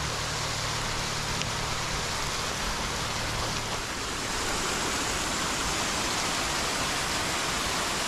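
Small waterfall and the creek below it rushing, a steady even hiss. A faint low hum underneath fades out about two seconds in.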